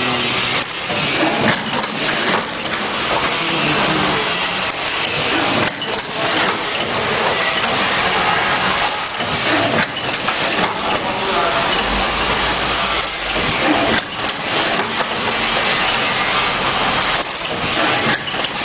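Automatic paint pouch-packaging machine running: a dense, steady noisy clatter with many irregular knocks, and a low hum that comes in about twelve seconds in and stops two seconds later.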